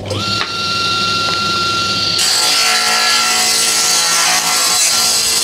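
DeWalt table saw switched on, its motor whining up to a steady speed. From about two seconds in, the blade rips a thin strip of wood, and the cutting noise drops back near the end while the motor keeps running.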